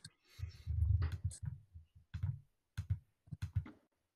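Steel-tip darts striking a bristle dartboard: a few short, sharp thuds in the second half, after a longer low thump about a second in.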